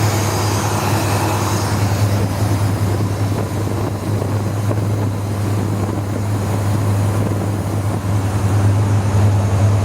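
Chevrolet 502 big-block V8 crate engine idling steadily through long-tube headers and a dual exhaust with an X-pipe and Flowmaster mufflers, still warming up after a cold start. It gets a little louder near the end.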